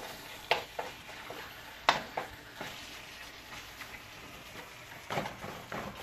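Minced meat and chopped onions sizzling in a nonstick wok on lowered heat while a wooden spatula stirs and breaks up the meat. The spatula scrapes and knocks against the pan a few times, loudest about two seconds in.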